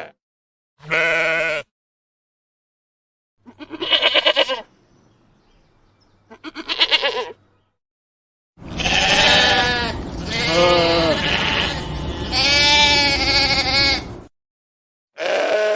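Lamb bleating: separate bleats with silent gaps between them, some with a wavering quaver, then several bleats in close succession over the second half, and one more near the end.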